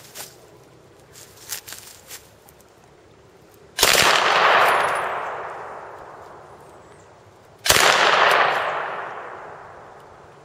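Two short bursts of submachine-gun fire, the second about four seconds after the first, each echoing and fading out over a couple of seconds.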